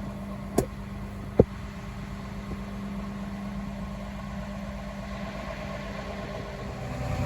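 Tractor engine running steadily, with two sharp clicks about a second apart near the start. The engine sound grows louder near the end.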